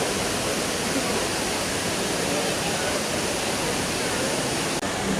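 Indoor waterfall at Dubai Mall, water falling steadily in a constant, even rush, with a brief dropout near the end.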